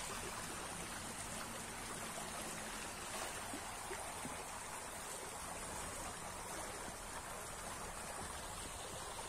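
Small shallow stream running steadily, its water rippling over the bed.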